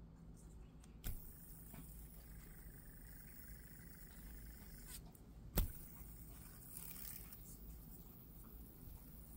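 Copper-sleeved titanium bead spinner on a paracord lanyard flicked into a spin: two sharp metallic clicks, a light one about a second in and a louder one past the middle, with a faint high tone between them.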